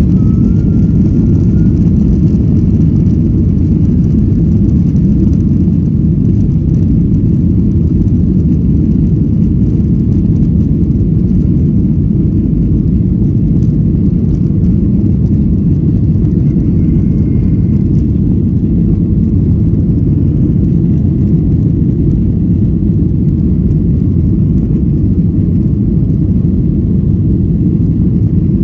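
Steady rumble inside the cabin of a Boeing 737-900 taxiing, its CFM56 jet engines running at low thrust.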